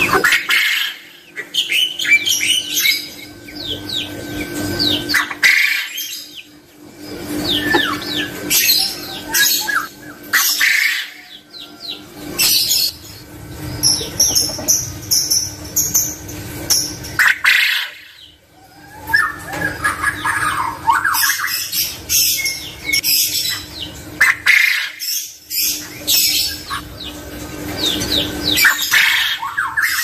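Male quail calling over and over, mixed with the chirping of other small birds, with a few short lulls. A steady low hum runs underneath.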